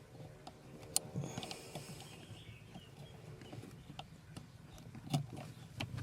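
Faint handling noise from hands working at the wiring connectors under a car seat: rustling with scattered sharp clicks, the loudest about a second in and again near the end.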